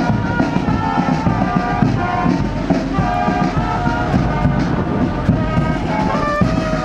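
Lively music for a marching procession: a melody of held notes over steady drumming.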